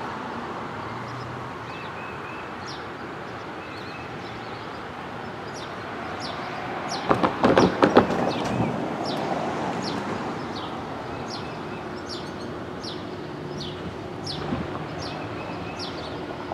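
A bird calling over and over, each call a short high chirp sliding downward, over a steady background hiss. About seven seconds in, a loud burst of knocks and rustling lasts for about a second and a half.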